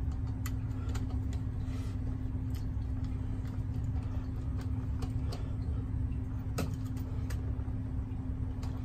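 Screwdriver turning and tightening a brass terminal screw on a GFCI outlet, giving about ten scattered small clicks and ticks, over a steady low hum.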